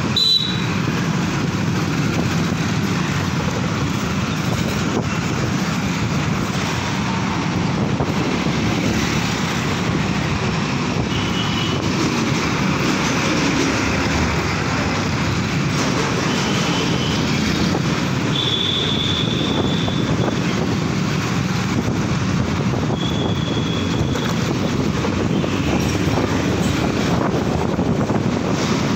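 Steady road-traffic noise from many motorcycles and other vehicles passing: a continuous engine and tyre rumble, with brief high-pitched tones sounding a few times.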